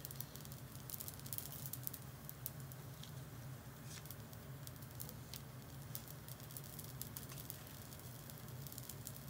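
Yaki manju buns grilling: faint sizzling with scattered sharp crackles, over a steady low hum.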